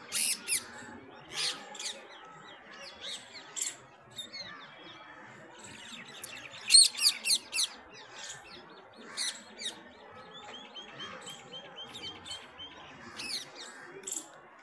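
Small birds chirping and calling in short, sharp high notes, with a quick flurry of loud chirps about seven seconds in and a run of about ten evenly spaced short notes a little after ten seconds.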